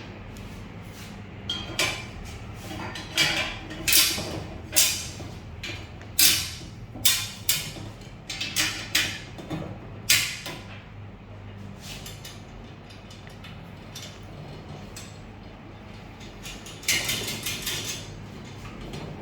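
Steel cable tray splice plate and bolts clanking and rattling against the galvanized tray as the joint is fitted by hand: a run of sharp metallic knocks with short ringing, then a quieter spell and a short burst of clatter near the end, over a steady low hum.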